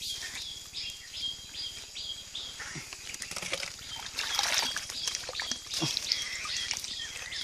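Close rustling and crackling as hands knead and handle a wad of fish bait, loudest in the middle. Behind it, a high chirp repeats steadily about three times a second.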